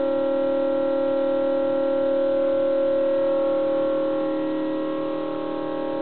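LG refrigerator making a really loud, steady howl of several held tones, like an air raid siren.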